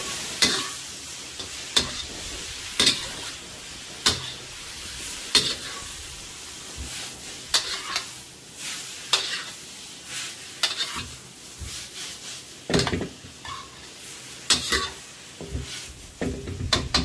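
Vegetables and pork sizzling in a hot wok while being stir-fried, with a metal wok spatula scraping and knocking against the wok in sharp strokes every second or so.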